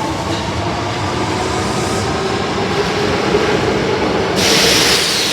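Osaka Metro Tanimachi Line train (car 22615) running, with a steady motor whine over rail noise. About four and a half seconds in comes a loud hissing burst lasting about a second.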